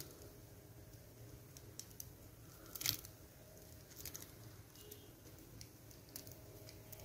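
Faint clicks and rustles as a beaded lantern keychain of crystal beads on thread is handled and wrapped with thread, beads and the metal key ring knocking lightly. The loudest is one sharp click about three seconds in.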